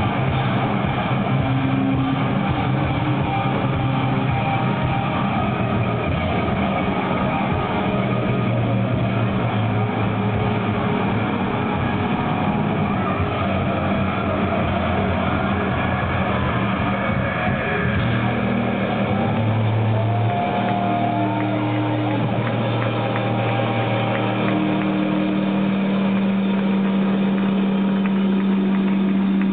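A stoner rock band playing live, with loud distorted electric guitars, bass and drums. From a little past halfway the drum hits thin out and the guitars hold long, droning notes that ring on to the end.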